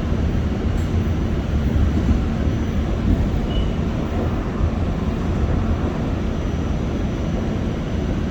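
New York City Subway A train running along the line, heard from inside the car: a steady low rumble of wheels on rail.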